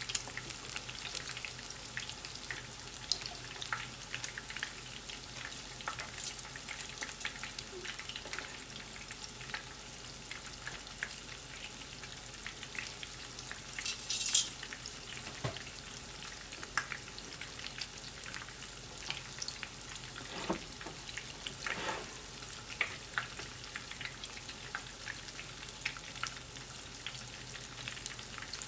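Battered chicken pieces deep-frying in hot oil: a steady sizzle with scattered crackles and pops. A brief louder hiss about halfway through.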